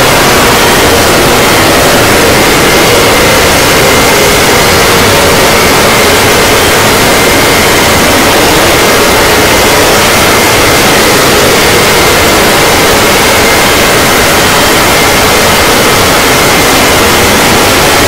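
Emergency alert alarm audio pushed into very loud, harsh static-like noise, with faint steady alarm tones buried under it and no break.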